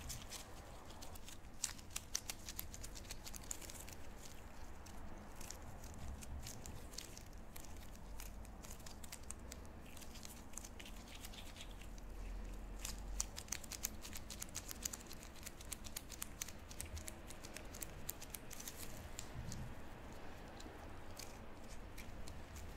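Gloved hands rolling and pressing soft wagashi dough, making a steady stream of small sticky clicks and the rubbing of disposable gloves.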